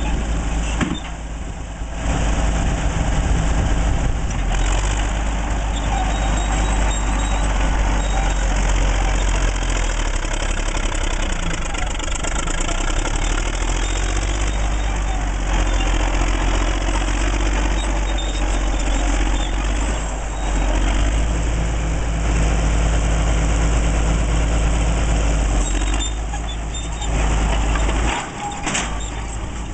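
1940s Caterpillar D8 bulldozer's six-cylinder diesel engine running steadily, with short drops in loudness about a second in and again near the end.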